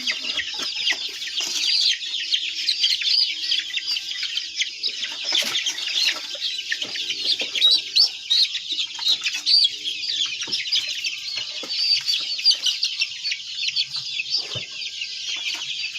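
A flock of many chickens calling at once: a dense, steady din of overlapping high chirps and clucks with no break.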